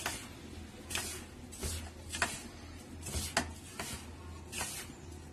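Hand mixing semolina and flour with water in a metal bowl: a string of short scraping rustles, about one or two a second, over a low steady hum.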